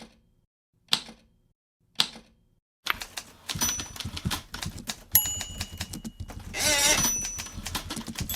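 Typewriter sound effects: three single keystrokes about a second apart, then a fast clatter of typing with a bell-like ding a little after five seconds in and a louder, drawn-out rasp near the end.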